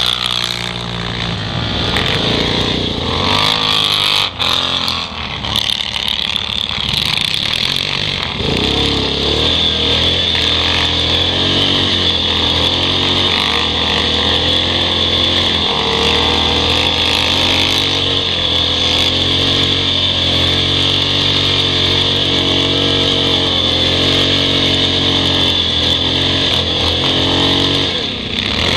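ATV engine running under throttle while riding across snow. Its pitch rises and falls over the first several seconds, then holds fairly steady for the rest.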